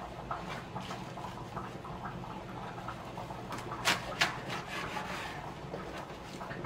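Fresh perilla leaves being handled and pressed into a stack on a wooden cutting board, with soft rustling and two sharp taps on the board about four seconds in.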